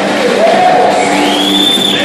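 Live band at the end of a song: a held chord rings on over crowd noise, with a high tone that glides up about a second in and is held.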